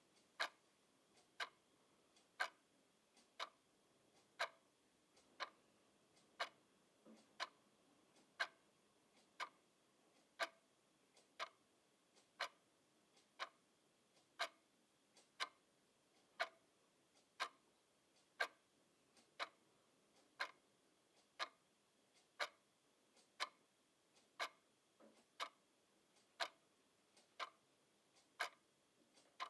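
Clock ticking steadily, one sharp tick about every second, each with a faint softer click just before it.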